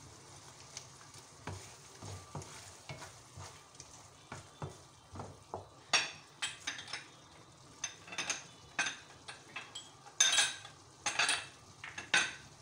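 Metal ladle scraping and tapping against a wok while stirring prawns into a thick masala, over a faint steady sizzle of the sauce cooking. The strokes get louder and come in quick clusters from about six seconds in.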